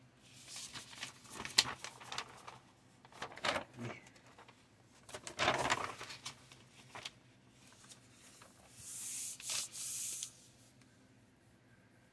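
A paper instruction sheet rustling and sliding as it is handled and laid flat on a workbench, in several short irregular bursts with a few light knocks, and a longer hissing slide about nine seconds in.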